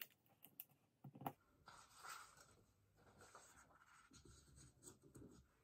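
Faint handling of paper and tape: a few soft clicks in the first second or so, then a light, even rustle and scrape of paper, all close to silence.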